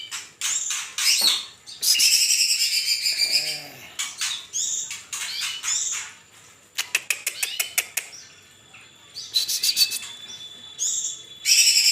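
Kalimantan green leafbird (cucak ijo) singing: rapid high whistled phrases mixed with chattering notes and sharp clicks, in loud bursts about two seconds in and again near the end, with a quieter stretch in the middle.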